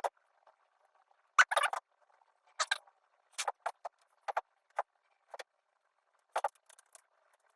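Small machined metal parts of a prop revolver clicking and scraping as they are handled and cleaned, in irregular short, sharp clicks and brief scratchy bursts.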